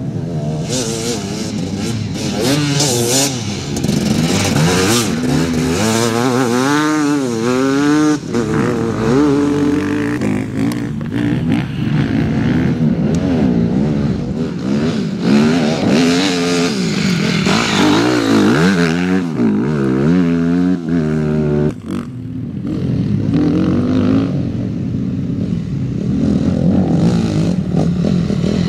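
Enduro dirt-bike engines revving hard and falling back as riders pass one after another over soft dirt, the pitch sweeping up and down with throttle and gear changes. The sound breaks off abruptly twice as one bike gives way to the next.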